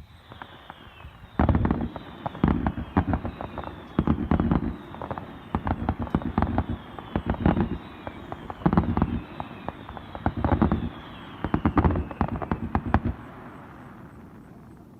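Fireworks going off in quick succession, roughly one loud boom a second with crackling, over high whistles that fall in pitch. The barrage stops about 13 seconds in, leaving a fading rumble.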